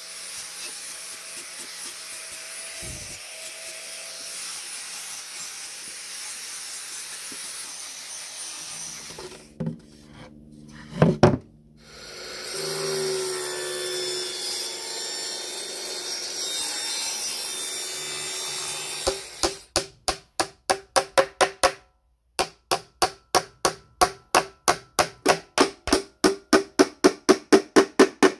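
Angle grinder with a sanding disc running steadily on a plywood edge, then a few knocks as wood is handled. A Metabo mitre saw runs for several seconds, and then a hammer drives nails into plywood with quick, even strikes, about three a second.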